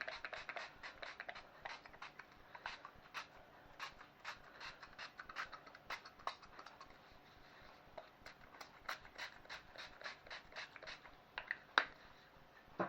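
Low-calorie cooking oil spray pumped in many short spritzes into a metal baking tin, quick in succession at first, then more spaced out. A sharper knock near the end.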